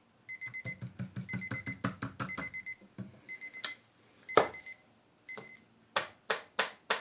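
Digital timer alarm beeping a high tone in rapid runs, first a long run and then a few shorter groups, marking the end of the timed bleach step. Near the end come several sharp clicks as the timer's buttons are pressed.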